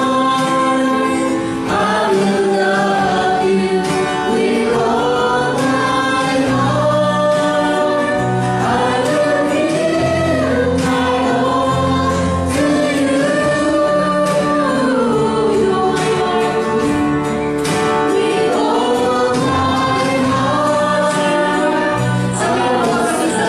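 A church worship team of several singers singing a gospel worship song over instrumental backing, in long held notes that slide from one pitch to the next.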